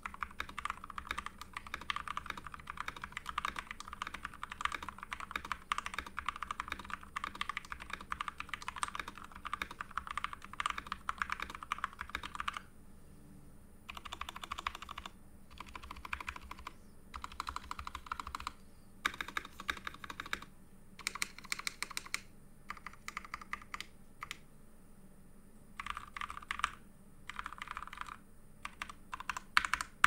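Mechanical keyboard typing on a GMMK TKL fitted with Zealios V2 tactile switches lubed with Krytox 205g0, its stabilizers clipped. Fast, steady typing for about twelve seconds, then after a short pause the keystrokes come in short scattered bursts with gaps between them.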